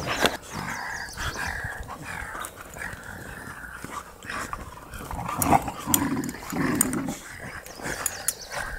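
Puppies growling in rough play-wrestling, the growls strongest about five to seven seconds in.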